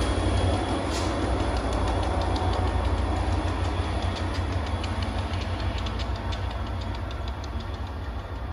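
Diesel locomotive running away down the line, its low engine rumble slowly fading as it recedes, with a scatter of light clicks from its wheels on the rails.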